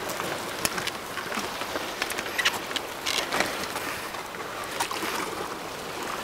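Sea water sloshing and splashing against shore rocks as a hooked red sea bream is drawn to the surface and netted, with scattered short sharp splashes and clicks.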